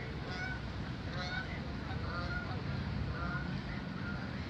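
Canada geese honking, a run of short calls repeating over and over, over a steady low rumble.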